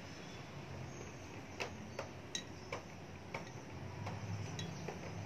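Potting soil being filled by hand into a glazed ceramic pot: scattered sharp ticks and clicks of grit and fingers against the ceramic, some with a brief ring, over a steady low hum.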